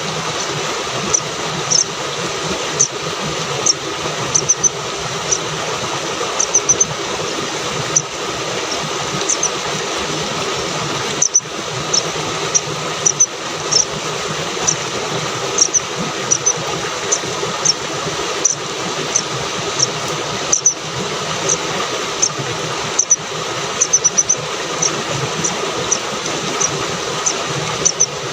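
Short, high-pitched squeaks from a small animal, repeating irregularly about once or twice a second and sometimes in quick pairs, over a steady hiss.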